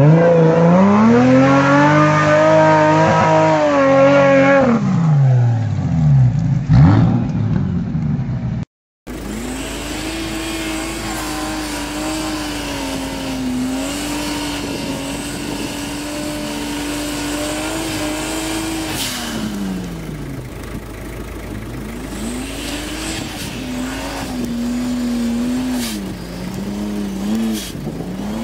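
2JZ straight-six engines in swapped Toyota Hilux off-road trucks revving under load. The first engine rises in pitch, holds high revs for a few seconds and falls away about five seconds in. After a brief dropout, a second truck's engine holds steady revs for about nine seconds, drops off, then climbs and holds again.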